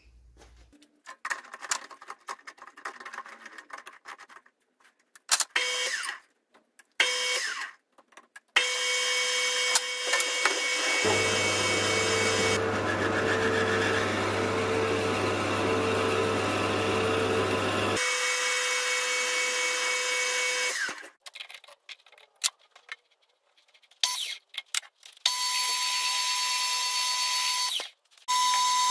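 Metal lathe running with a steady hum while a drill bit in its tailstock bores out the worn centre of a plastic shopping-cart wheel. The bit cutting adds a deeper, heavier sound for several seconds in the middle. Before the lathe starts there are scattered clicks and knocks of the wheel being clamped in the chuck, and after a pause the lathe runs again near the end.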